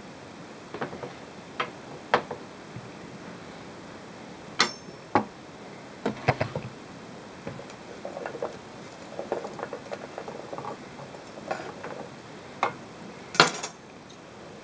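Kitchen knife and chopped celery on a wooden cutting board: irregular single taps and knocks, then a stretch of light clatter and scraping as the pieces are swept across the board, with the sharpest knock near the end.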